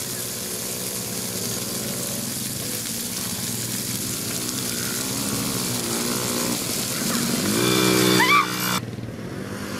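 ATV (four-wheeler) engine running under a rider, its pitch rising and falling as the throttle is worked. It revs up near the end, with a brief high rising sound over it, before cutting off abruptly.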